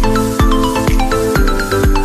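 Upbeat electronic dance music with a heavy beat about twice a second, sustained chords and a melody of short bright notes.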